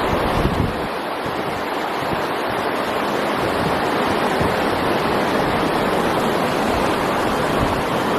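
Fast-flowing river water rushing steadily and loudly.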